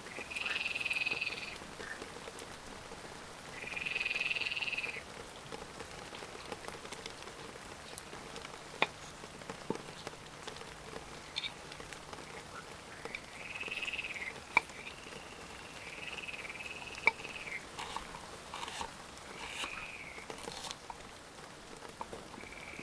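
Frogs croaking: about six calls of one to two seconds each with pauses between, the first two loudest, over a light hiss of rain with scattered sharp ticks.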